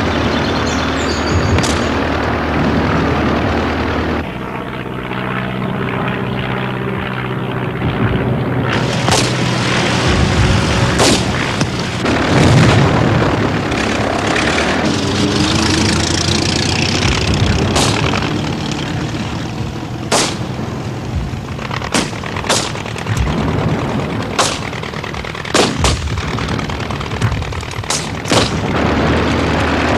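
Wartime battle sounds: a steady engine drone at first, then scattered gunshots and booming explosions, single bangs every second or two from about nine seconds in, over a continuous rumble.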